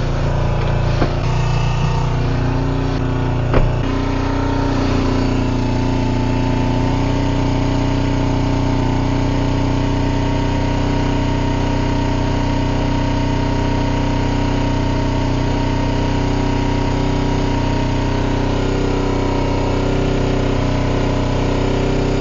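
Suzuki motorcycle engine idling steadily at an even, unchanging speed. A few light knocks in the first few seconds, the sharpest about three and a half seconds in.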